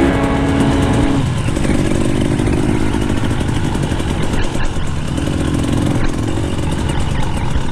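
Enduro dirt bike engine running under way, the revs rising and easing as it is ridden off-road.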